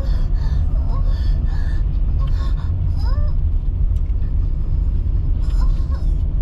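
Road and engine noise of a car being driven, heard as a steady low rumble, with faint short higher-pitched sounds over it.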